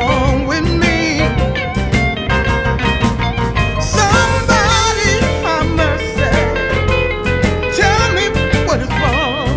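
Blues music playing: an instrumental passage with a guitar lead bending and wavering its notes over a steady bass and drum beat.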